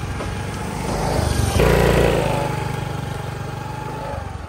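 Small motor scooter's engine passing by. It grows louder to a peak about a second and a half in as the scooter goes past, then fades as it rides away.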